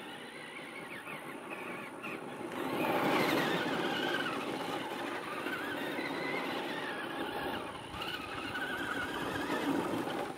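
Traxxas Bigfoot RC monster truck driving, its electric motor whining and rising and falling in pitch as it speeds up and slows, loudest about three seconds in. The battery is running low.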